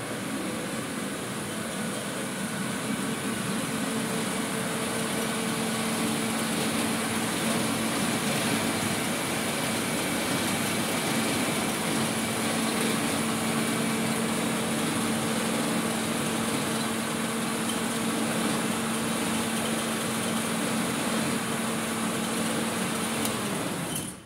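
Electric cargo tricycle's drive motor and rear wheels spinning on a roller test bench: a steady hum with a low whining tone. It builds over the first few seconds and stops abruptly near the end.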